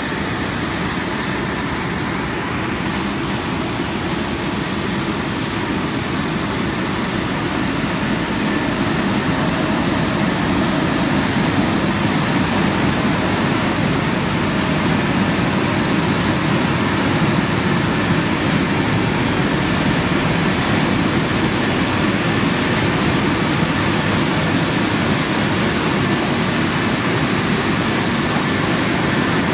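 Drying blowers of a Haitian XL200 rollover car wash machine running, a steady loud rush of air over the car as the gantry passes, growing louder about ten seconds in.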